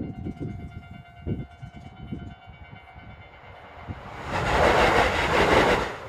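Railway level-crossing warning bell ringing while a train goes by, played at four times speed. It ends in a loud rush of noise lasting under two seconds near the end.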